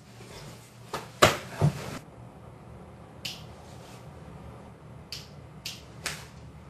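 Two sharp clicks or knocks about half a second apart, the second with a low thud, then a quiet room with a few brief soft hisses.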